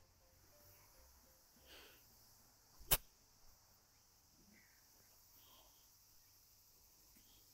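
A single sharp click of a golf club striking during a short approach swing about three seconds in, over faint, quiet outdoor ambience.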